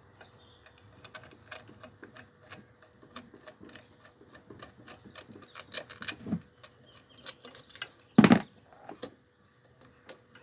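Irregular small clicks and taps of parts being handled and fitted by hand, with one loud knock a little after eight seconds in.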